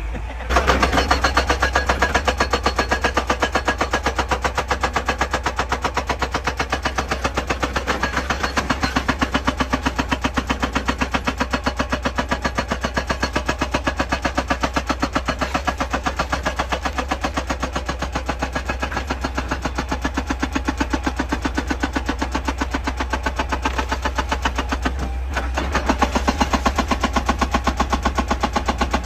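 Excavator-mounted hydraulic breaker hammering rock in a fast, even train of blows, over the steady low rumble of the machine's engine. The hammering stops briefly about 25 seconds in, then starts again.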